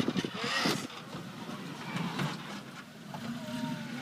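Off-road vehicle's engine running at low revs; its steady hum comes up about three seconds in.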